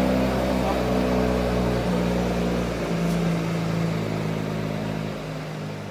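A car engine running steadily in the workshop, its pitch shifting up and down a few times and easing off slightly near the end.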